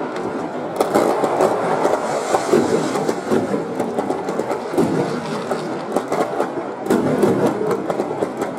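Fireworks exploding and crackling in quick succession, slowed to half speed so the bangs come out lowered and drawn into a continuous rumble, with many sharp cracks throughout and a cluster of louder ones about a second in and again around seven seconds.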